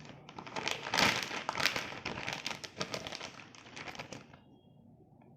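Aluminium-foil stand-up pouch crinkling as it is handled: a dense run of crackles, loudest about a second in, that dies away after about four seconds.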